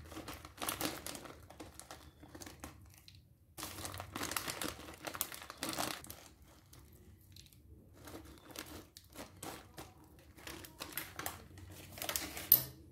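Plastic packet of grated cheese crinkling in irregular rustles as the cheese is tipped out of it, with a short louder rustle near the end.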